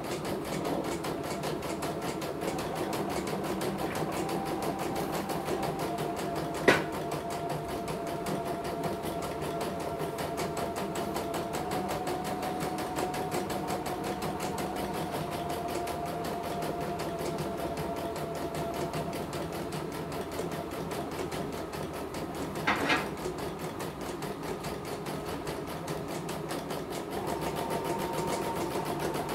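CNY portable computerised embroidery machine stitching a design: a fast, steady needle rhythm over a motor whine that steps in pitch a few times as the hoop moves. A sharp click about 7 seconds in, the loudest sound, and another about 23 seconds in. The machine runs smoothly, with no stopping and no thread breaks.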